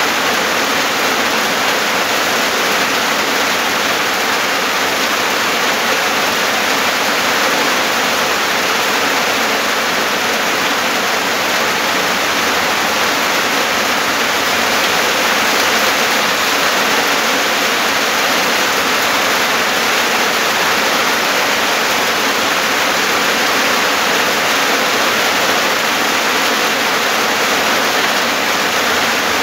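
Rain falling steadily: a loud, even hiss of heavy rain with no breaks.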